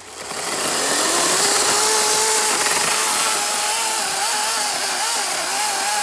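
Greenworks G-MAX 16-inch battery electric chainsaw spinning up with a rising whine over about a second, then running at speed with its pitch wavering and dipping as it cuts wood.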